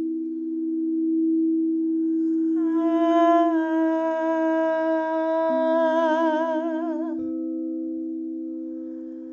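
Crystal singing bowls hold two steady low tones. Over them, a high voice sings one long wavering note from about a third of the way in to about three-quarters through. Near the end, a higher steady bowl tone takes over.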